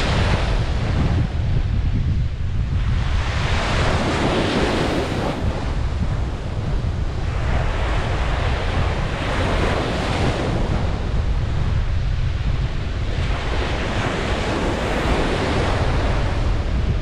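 Ocean surf breaking and washing up a beach, swelling and fading in slow surges about every four to five seconds over a steady low rumble.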